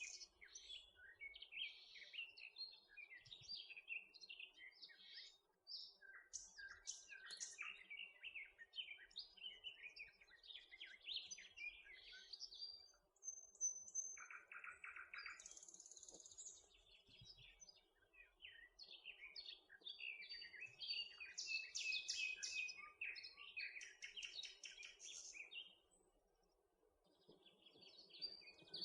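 Faint chirping and twittering of small songbirds: many short, high calls and trills, scattered and overlapping.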